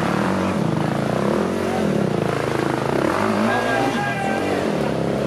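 Enduro motorcycle engine revving up and down, its pitch rising and falling over and over as the bike labours up a steep, rocky climb, with spectators' voices mixed in.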